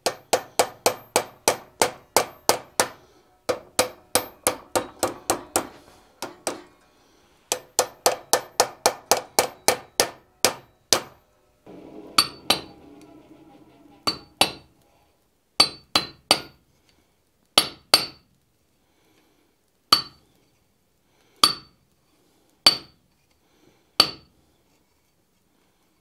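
Hand-hammer blows on hot steel. In the first part they come in fast runs of about four a second, driving a hot pipe-lock key's hollow barrel down over a steel stub held in a vise to open it up. After a short gap come slower single strikes on the key in a steel swage block on the anvil, each with a brief high ring.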